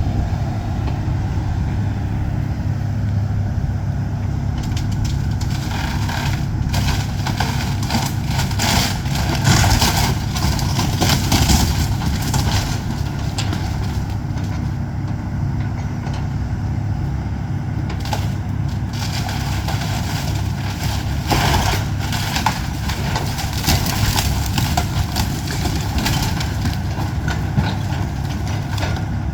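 Excavator's diesel engine running steadily, with two stretches of crackling and crunching as the house is broken up, one from about six seconds in and another past the twenty-second mark.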